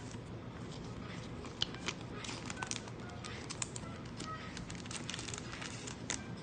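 Quiet, irregular soft clicks, crinkles and rustles of trading cards and card-pack wrappers being handled.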